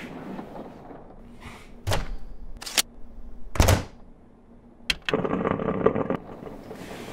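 A few sharp clunks and clicks as a mug and a red single-serve pod coffee maker are handled, its lid worked open and shut, the loudest clunk about halfway through. After it comes about a second of rushing noise.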